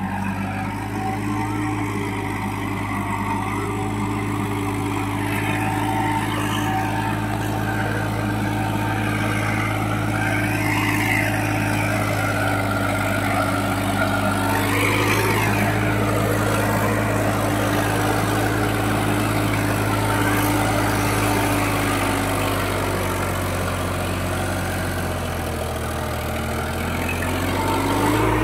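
Sonalika tractor's diesel engine running steadily under load as it pulls a loaded trailer through a muddy paddy field, growing louder as it approaches. Near the end the engine note sags briefly, then rises again.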